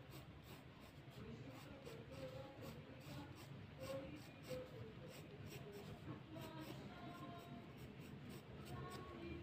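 Graphite pencil scratching across drawing paper in many short, quick sketching strokes, faint.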